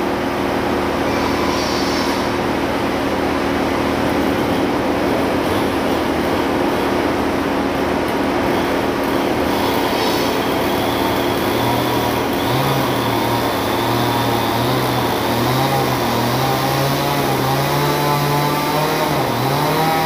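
Chainsaw engine running steadily at idle. From about halfway in, a lower engine note joins and wavers up and down in pitch.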